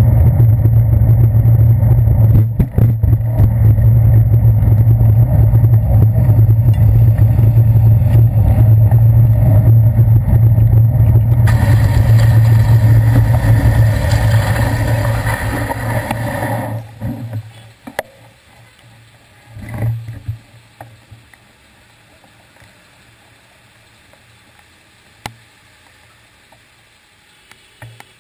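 Bicycle ride on wet city streets picked up by a handlebar-mounted camera: a loud, steady low rumble of road vibration and wind, with a hiss over it for a few seconds. About two-thirds of the way through it drops away sharply as the bike stops, leaving faint street traffic and a couple of short knocks.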